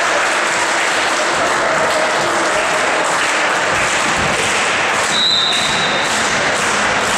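Spectators applauding steadily. A referee's whistle sounds once about five seconds in, a single steady blast lasting about a second, signalling the next serve.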